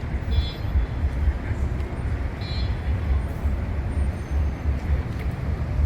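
Outdoor city waterfront ambience: a steady low rumble, with two brief high-pitched chirps about half a second and two and a half seconds in.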